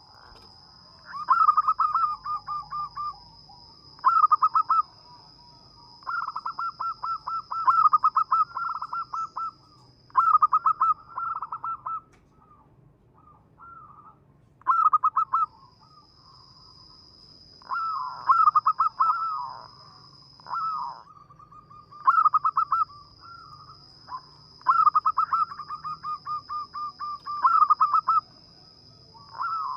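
Zebra dove (perkutut, a local bird) cooing. It repeats short phrases of quick, fluttering notes every two to three seconds, with brief pauses between.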